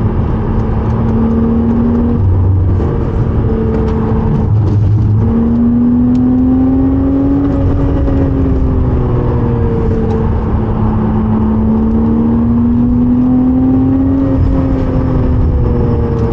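Porsche Cayman S 3.4-litre flat-six running hard at high revs, heard from inside the car. The engine note rises and falls slowly, with brief dips about two and four and a half seconds in, and faint light ticks sit over it in the first five seconds.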